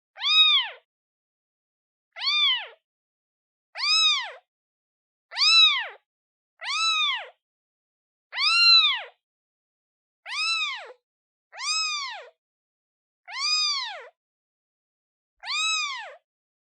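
A day-old kitten meowing over and over to call its mother: about ten short, high, piercing cries, each rising and then falling in pitch, about one every second and a half.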